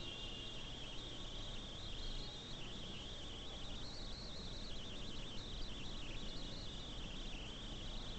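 Faint background: a steady, high, wavering chirr of insects over low hiss.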